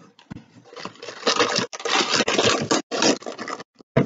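Food packaging rustling and crinkling as it is opened by hand, heaviest from about a second in until shortly before the end.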